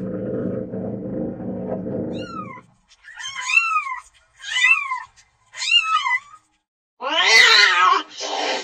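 Domestic cat: a low continuous rumbling for the first two and a half seconds, then a short falling mew and three meows about a second apart, each rising then falling in pitch. Near the end comes a louder, harsher, wavering yowl.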